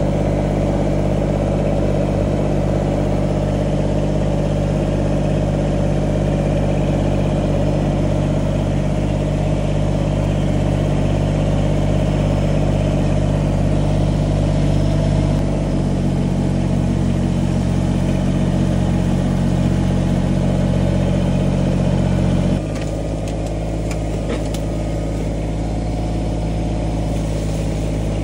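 Kubota compact tractor's diesel engine running steadily as the tractor drives with a loader load of brush. Its note changes a little past halfway, and about three-quarters of the way through it drops back and runs somewhat quieter.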